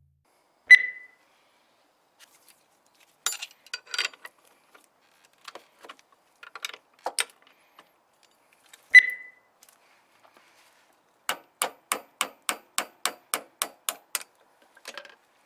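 Hand-tool work on a scooter: scattered metallic clicks and two short ringing clinks, then an even run of about a dozen ratchet-like clicks, roughly four a second, for about three seconds.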